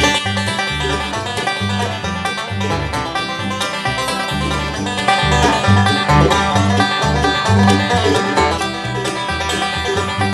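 Bluegrass band playing an instrumental break: fast-picked string instruments over low bass notes on the beat, with no singing.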